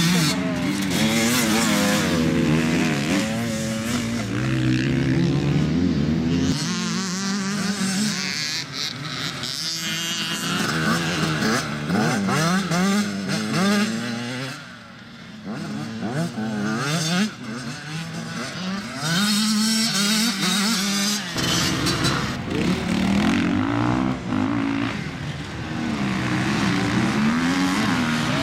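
Enduro dirt bike engines revving hard and easing off, the pitch rising and falling again and again as the bikes are ridden, with a quieter stretch about halfway through.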